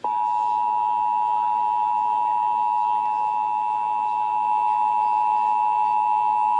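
Emergency Alert System two-tone attention signal: 853 Hz and 960 Hz sine tones sounding together as one loud, steady, harsh tone. It cuts in suddenly and holds unchanged, announcing a severe thunderstorm warning about to be read.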